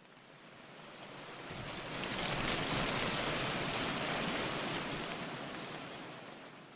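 A smooth rushing noise with no tone or rhythm, like a single swell of surf or wind, that rises slowly, peaks in the middle and fades away near the end.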